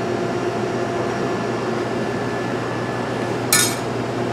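Steady mechanical hum of kitchen machinery such as fans and refrigeration, with a brief rustle about three and a half seconds in.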